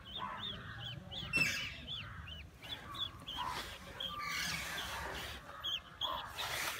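Birds chirping over and over in short, high calls, with a sharp knock about one and a half seconds in.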